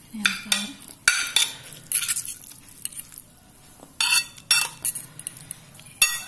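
A fork and spoon scrape and clink against a ceramic plate as instant fried noodles are tossed with sambal and cucumber. The scrapes come in short irregular bursts.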